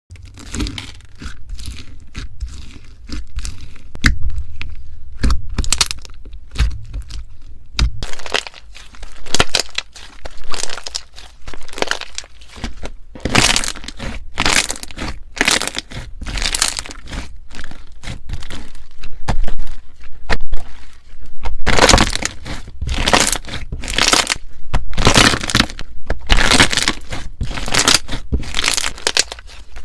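Slime being squeezed and worked by hand: a long, irregular run of crackles, pops and snaps that grows louder about halfway through.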